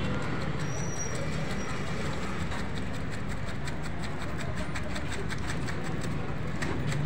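A kitchen knife rapidly scoring and dicing the flesh of a half watermelon, a quick run of crisp clicks, several a second, through the middle, over a steady low background rumble.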